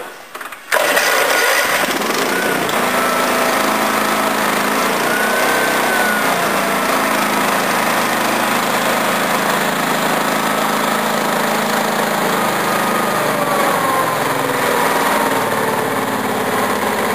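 Single-cylinder overhead-valve ride-on mower engine, started on choke, catches about a second in and settles into a steady idle with its speed wandering slightly. Its over-adjusted rocker has just been reset, and the idle is how it is supposed to sound.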